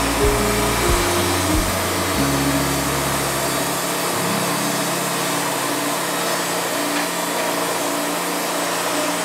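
Wood-Mizer band sawmill running with a steady, loud rushing noise. Background music plays over it, with short stepped notes and a beat in the first two seconds, then held low notes.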